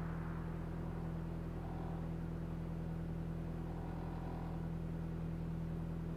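MINI Cooper S (R53) supercharged 1.6-litre four-cylinder engine idling steadily, heard from inside the car.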